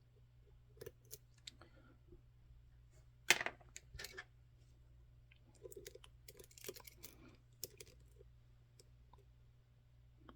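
Faint, scattered metal clicks and scrapes of a lock pick probing the pins inside an EVVA ICS high-security lock held under tension, the loudest click about three seconds in and a busier patch of ticking between about five and eight seconds in.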